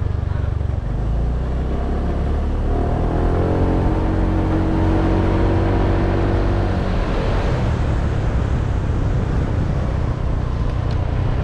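Motorbike engine running under way, its note climbing as the bike speeds up about three seconds in, with heavy wind rush on the microphone.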